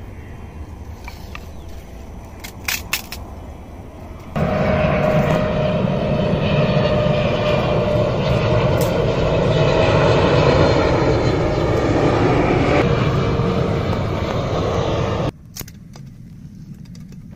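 Jet airliner passing low overhead: loud engine noise with a steady whine. It cuts in abruptly about four seconds in and cuts off abruptly about a second before the end. Before it there is a quieter steady rumble with a few clicks.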